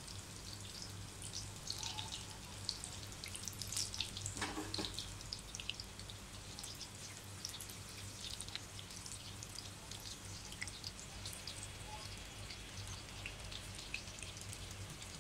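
Chicken cheese balls deep-frying in hot oil in a kadai: the oil sizzles faintly with scattered small crackles and pops.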